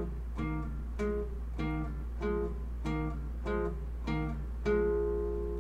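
Classical nylon-string guitar playing a finger-independence exercise: two strings plucked together as one dyad, about eight evenly spaced plucks, a little more than one a second, the last one left to ring.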